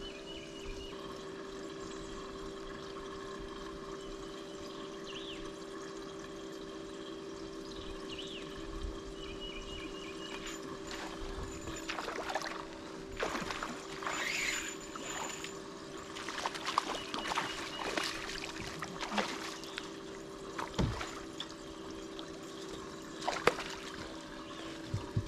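Water splashing and trickling at the side of a fishing boat, over a steady hum. The splashes and knocks come more often from about ten seconds in.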